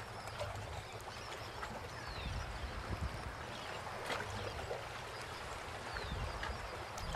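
Quiet marina ambience: gentle water sounds under a low rumble, with scattered short, high, falling bird chirps.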